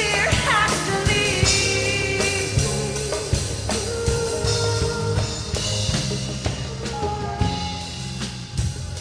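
Live gospel worship band playing with drum kit, keys and bass, with some singing over the top.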